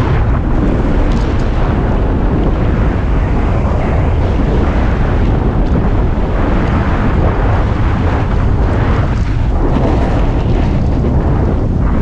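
Steady heavy wind buffeting on an action camera's microphone while riding fast downhill, mixed with the scraping rush of the snowboard over packed snow.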